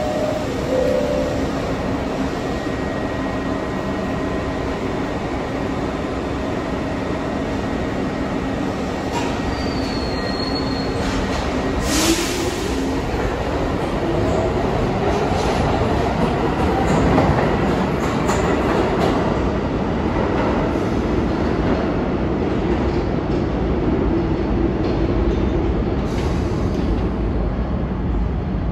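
New York City subway train running through the station, with steady wheel and rail noise and some squeal. A sharp click about halfway through is followed by a motor whine that climbs in pitch over several seconds.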